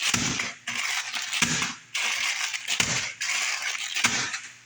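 Dry block of instant ramen noodles being broken up by hand inside its plastic package: crunching and plastic crinkling in several bursts of about a second each.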